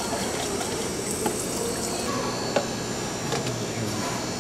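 Water running steadily from a drinks-station faucet, with two short sharp clicks about a second apart.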